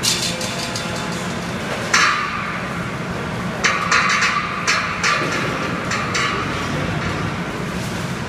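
Automatic wire mesh welding machine running: a steady hum under sharp metallic clanks about every one to two seconds, with a longer hissing burst near the middle.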